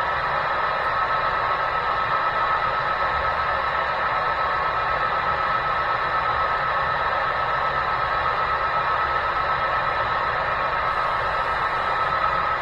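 HO-scale HXD2 electric locomotive model's DCC sound decoder playing its running sound through the model's small speaker: a steady hiss-like rush with a constant tone running through it.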